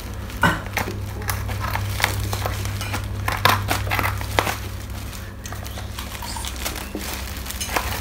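Scissors cutting into a black plastic parcel wrapping, with irregular snips and crinkling of the plastic. A steady low hum sits underneath.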